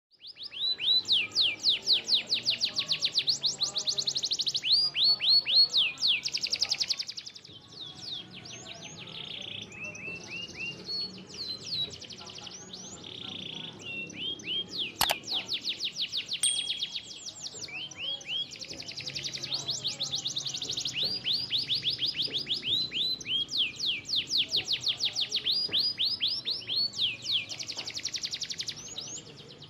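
Canary singing a long, loud contest-style song of rapid rising chirps run together into trills. The song is louder in the first few seconds and again near the end, with softer phrases in the middle. There is a single sharp click about halfway through.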